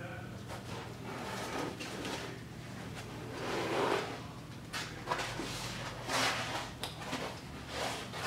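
Printer parts and packaging being handled: a series of short rustles, scrapes and soft knocks, over a steady low hum.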